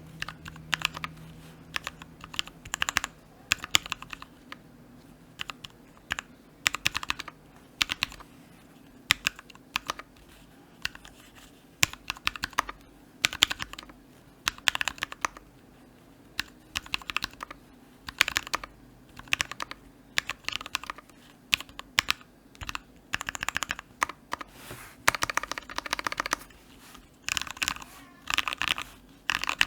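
Typing on a NIU Mini 40% mechanical keyboard with lubed and filmed Gateron Ink Black linear switches and DSA keycaps: irregular bursts of keystroke clicks separated by short pauses.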